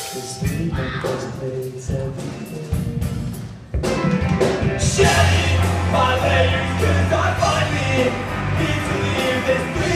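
Live punk rock band of electric guitars, bass guitar and drum kit playing. A sparser, quieter passage gives way about four seconds in to the full band coming in loud and dense.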